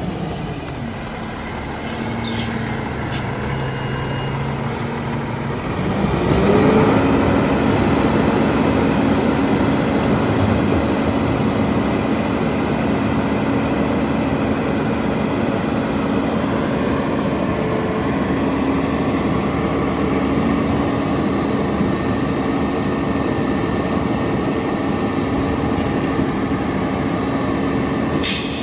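Diesel engine of a Lodal split-body side-loader garbage truck running as the truck pulls up, with brief air-brake hisses about two to three seconds in. About six seconds in the engine speeds up and holds at a steady raised rev, typical of the hydraulics being engaged for the cart tipper and packer. A sharp clatter comes near the end as a trash cart is lifted.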